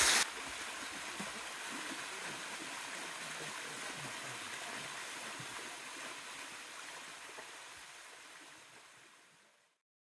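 Waterfall: a steady rush of water falling and splashing onto rock, which fades away over the last few seconds.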